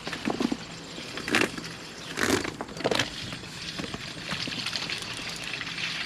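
Collapsible plastic RV sewer hose being handled and squeezed as it is drained. There are several sharp crinkling cracks in the first three seconds, then a softer, steady rustle.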